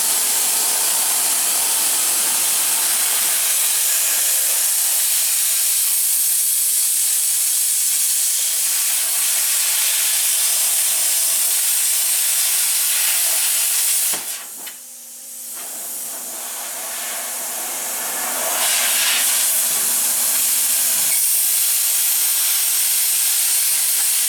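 A loud, steady hiss. It drops away suddenly about fourteen seconds in, then builds back up a few seconds later.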